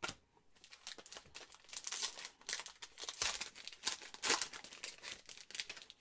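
Foil trading-card pack being torn open and crinkled by hand: a dense run of crackling and rustling with a sharp snap right at the start.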